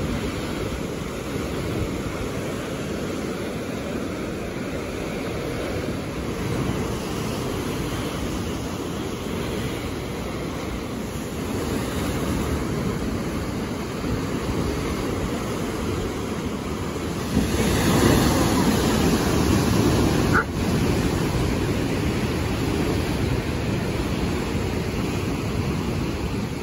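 Rough sea surf at high tide, surging and breaking against rock stacks and cliffs in a steady, continuous wash. It swells louder for about three seconds a little past halfway, then drops back suddenly.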